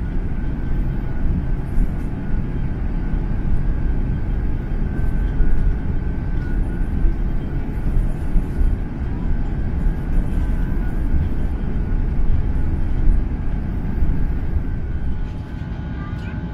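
Airbus A350-900 cabin noise on the ground: a steady low rumble with a faint steady whine, the level dipping slightly near the end.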